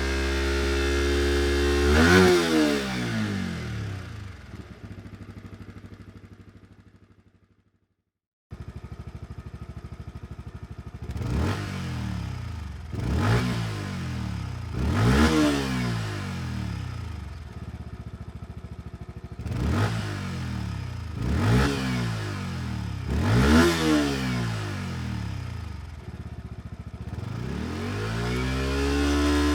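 Yamaha WR125R single-cylinder four-stroke engine breathing through a DELTA Barrel4-S aftermarket silencer. It revs up and back down, then fades away to silence. After a break it idles, with several short throttle blips, and its revs climb again near the end.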